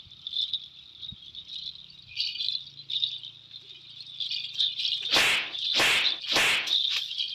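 Small bells worn by the players jingle and rattle as they creep about. About five seconds in come three loud swishes of a long straw broom, swung hard by the blindfolded player, each well under a second after the last.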